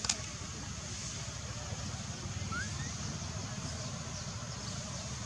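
Outdoor ambience: a steady low rumble under an even hiss, with one sharp click just after the start and a single short rising chirp about two and a half seconds in.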